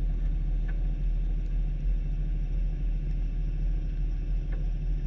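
Steady low rumble with a faint hum, and a couple of faint clicks.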